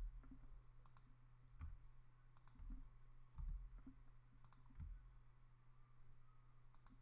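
Faint computer mouse clicks, a few scattered ones, several in quick pairs, over a low steady hum.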